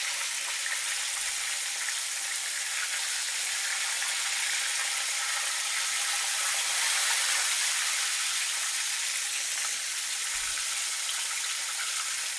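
Coated chicken thigh pieces deep-frying in hot oil in a frying pan during the second fry, a steady, dense sizzle that swells a little around the middle. The second fry draws moisture out of the chicken, which keeps the oil sizzling hard.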